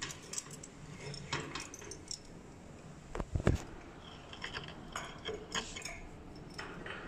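A bunch of keys jangling and clinking against a metal padlock as a key is worked into it, with a dull knock about three seconds in.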